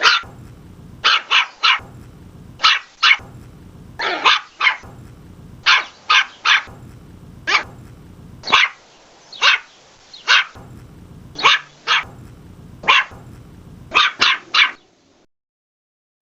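West Highland White Terrier barking in quick bursts of two or three sharp, high barks, about two dozen in all, stopping about a second before the end.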